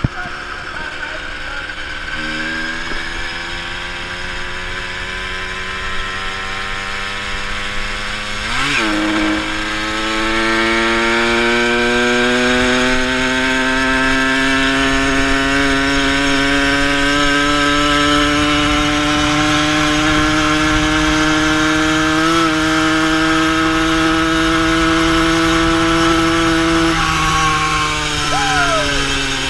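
Motor of a motorized bicycle running under way. Its pitch climbs slowly as it picks up speed, with a quick dip and jump about a third of the way in, then falls away near the end as the rider eases off. Steady rushing noise runs underneath.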